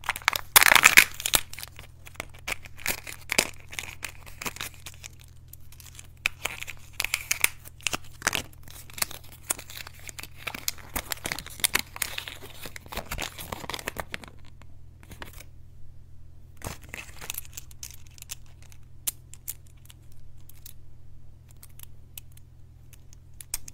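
Crinkling and tearing of a Kinder Joy egg's thin foil seal as it is peeled off the plastic shell, then of the toy's wrapper packet being torn open; it is loudest in the first couple of seconds. After about 14 seconds the rustling gives way to scattered soft clicks of a small plastic toy being handled. A low steady hum runs underneath.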